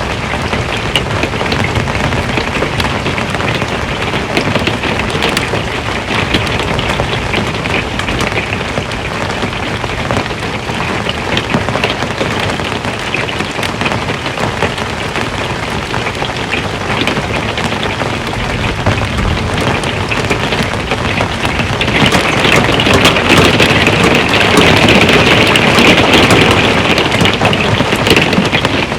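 Rain drumming on an RV's metal roof: a dense, steady patter of many small hits that grows heavier and louder about three-quarters of the way through.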